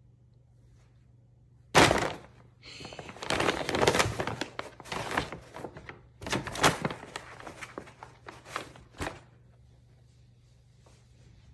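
Brown paper grocery bag rustling and crinkling as a cat pushes its head and paws into it, starting with a sudden loud crackle about two seconds in and going on in irregular bursts until about nine seconds in.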